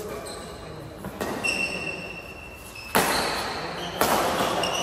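Badminton rackets striking the shuttlecock during a rally: sharp hits about a second in, three seconds in and four seconds in. The last, the loudest, is an overhead jump smash. Shoes squeak on the court floor between the hits.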